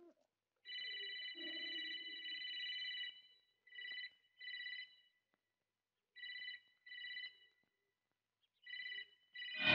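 Electronic telephone ringing: one long ring of about two and a half seconds, then short rings in pairs, repeating about every two seconds.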